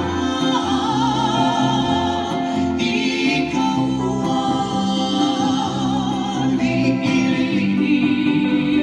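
Live acoustic band playing: a woman singing over lap steel guitar, ukulele and upright bass, with a wavering melody line above steady plucked bass notes.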